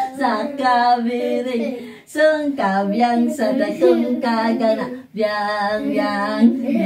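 A woman and children singing a Filipino children's game song together, in three phrases with short breaks between them.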